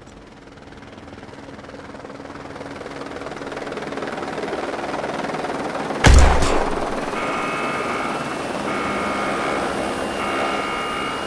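Helicopter approach sound effect: the rotor and engine drone grows steadily louder over about six seconds as the helicopter flies in, panned left to right. A sudden loud bang comes about six seconds in, then steady high tones start and stop repeatedly over the helicopter.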